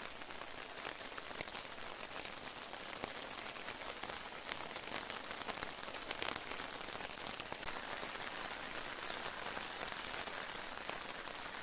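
Steady rain falling, a continuous hiss dotted with many small drop ticks, heard from under a tarp shelter.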